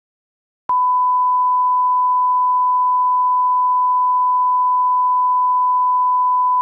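Steady 1 kHz reference tone, the test tone that runs with broadcast colour bars. It is a single pure beep held at a constant level, and it starts abruptly with a click under a second in.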